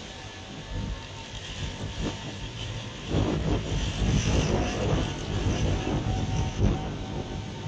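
Tornado-force storm wind, a loud rushing noise with a heavy low rumble. About three seconds in it surges into harder, uneven gusts.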